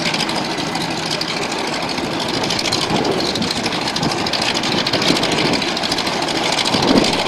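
An engine idling steadily with a rough, rapidly pulsing beat.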